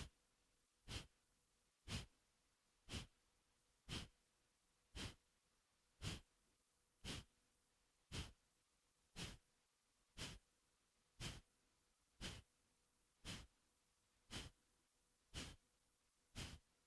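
Kapalabhati breathing: short, forceful exhales pushed out through the nose by snapping the belly in, evenly spaced at about one a second. The inhales between them are silent.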